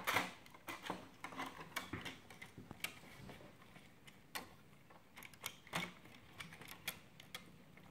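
Plastic LEGO pieces clicking and knocking irregularly as hands push a Technic car into a brick-built ship and fit it in place.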